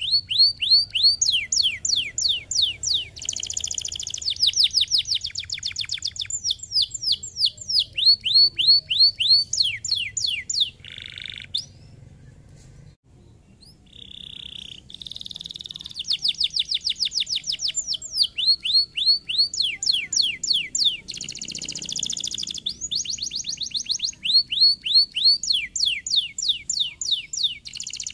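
Domestic canary singing a long song of fast trills of repeated downward-sweeping notes, mixed with buzzy rolls. The song pauses for about two seconds midway, then starts again.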